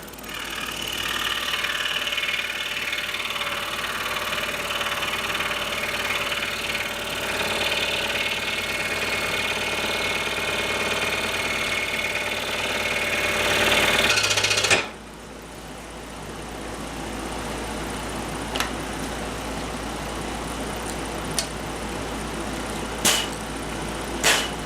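Scroll saw running and cutting through a thick maple block, a steady buzzing rattle that stops suddenly about fifteen seconds in. After that a quieter steady noise remains, with a few short sharp knocks near the end.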